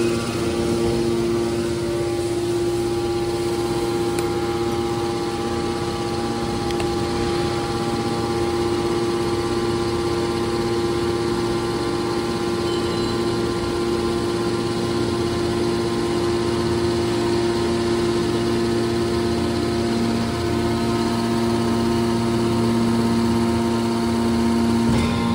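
Electric motors driving the hydraulic pumps of a scrap-metal baler, running steadily: a constant machine hum with several fixed tones that never change in pitch.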